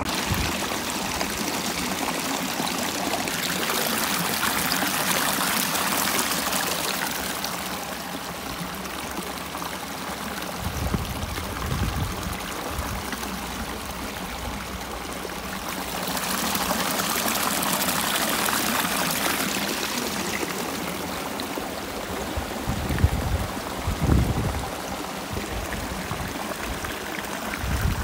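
Small mountain river running over rocks through a shallow cascade: a steady rush of water that swells louder twice. A few short low bumps come near the middle and near the end.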